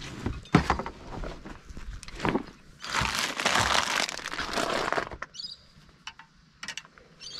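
Knocks and rustling as a fabric tackle backpack is handled, then, about three seconds in, a plastic Allen's lolly packet crinkling loudly for about two seconds, followed by a few light clicks.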